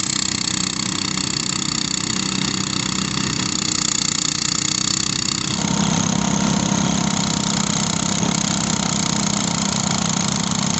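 Portable rice thresher running steadily, its small petrol engine driving the threshing drum as rice stalks are fed in. The tone shifts slightly about halfway through.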